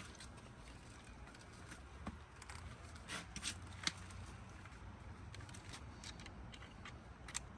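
Faint, scattered clicks and light scraping of hand work on an air-conditioner condenser's run capacitor and its wiring, over a steady low rumble. The sharpest clicks come a little after three seconds and again near the end.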